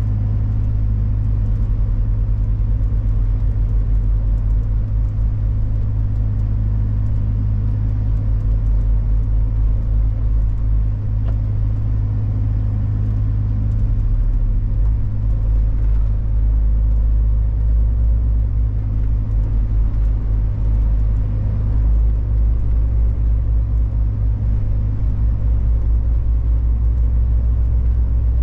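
Truck's diesel engine running steadily while driving, a continuous low drone heard from inside the cab.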